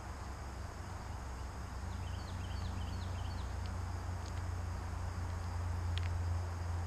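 Small birds chirping in short, repeated falling calls over a steady low rumble, with a single sharp click about six seconds in.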